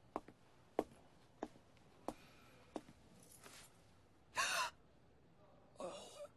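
Five sharp taps evenly spaced about two-thirds of a second apart, then a short startled gasp about four seconds in and another sharp intake of breath near the end.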